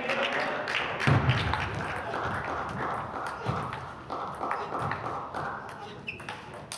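Table tennis rally: the celluloid ball clicking off rubber paddles and the table in quick, irregular taps, with dull thuds of players' shoes on the hall floor. Voices murmur in the background.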